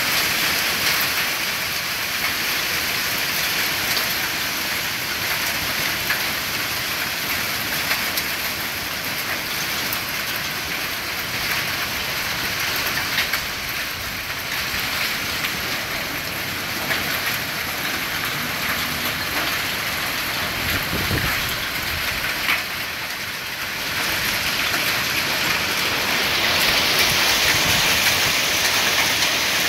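Heavy rain mixed with hail pouring down on a garden lawn: a steady dense hiss with scattered sharp ticks of hailstones striking. A low rumble comes about two-thirds of the way in, and the downpour grows louder and brighter near the end.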